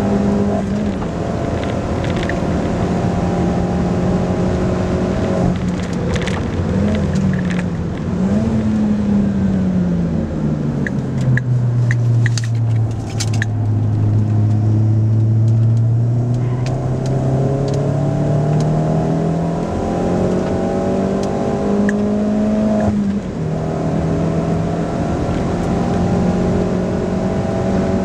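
Opel Corsa OPC's turbocharged 1.6-litre four-cylinder engine heard from inside the cabin on a track lap. The revs fall under braking and downshifts to their lowest about halfway, then climb again as it accelerates hard, with an upshift near the end. A few light clicks come around the slowest point.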